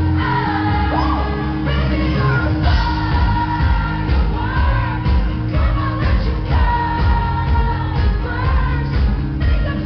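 Live pop song from a concert: a female lead singer over amplified band backing, heard through the hall's PA. A regular bass beat comes in about three seconds in.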